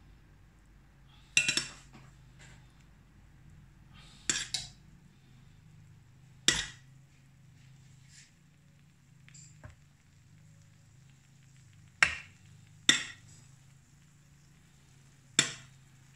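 Metal spoon clinking against a takoyaki pan as filling is spooned into the wells: about six sharp clinks a few seconds apart, some as quick double taps. A low steady hum runs underneath.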